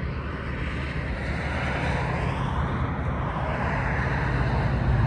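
A road vehicle approaching, its engine hum and tyre noise growing steadily louder.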